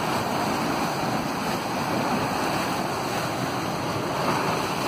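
Steady rush of churning floodwater from an overflowing dam, waves slapping along the embankment wall, with some wind on the microphone.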